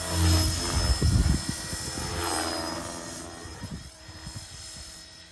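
Align T-Rex 470 electric RC helicopter's motor and rotor whirring, with two loud choppy bursts near the start and about a second in, then the sound dying away over the last few seconds.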